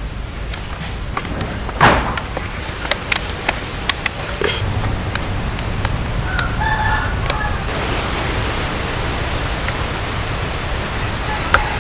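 Steady hissing background noise with scattered knocks and taps and a louder knock about two seconds in. A rooster crows briefly in the middle.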